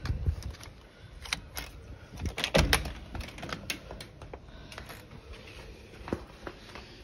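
Clicks and knocks of a door being handled and pushed open to walk through, with the loudest knocks about two and a half seconds in and a last one near the end.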